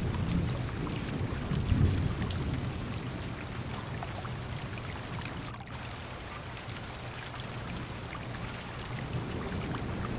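Heavy rain drumming on a car's window and body, with a rumble of thunder dying away over the first couple of seconds, then steady rain with scattered drop ticks.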